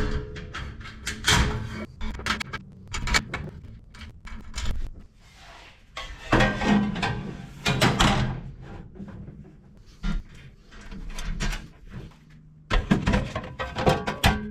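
Metal stand parts being handled and fastened: irregular clanks, knocks and rattles, with two longer stretches of busier clattering about six seconds in and near the end.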